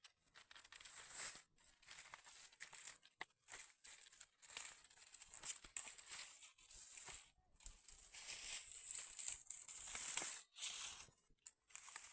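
Dry corn leaves and husks rustling and crackling in irregular bursts as the corn is handled. The rustling grows louder about two-thirds of the way through.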